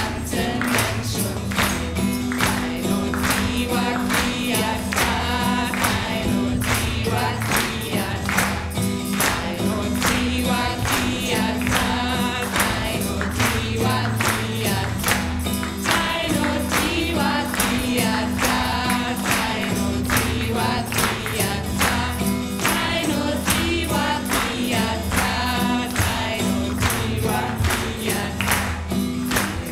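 A group singing a kirtan chant together, over a steady percussion beat and a held low tone.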